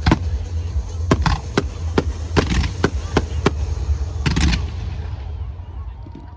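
Fireworks bursting in a rapid series of sharp bangs, about a dozen in four seconds with a quick cluster near the four-second mark, over a deep rumble that dies away toward the end.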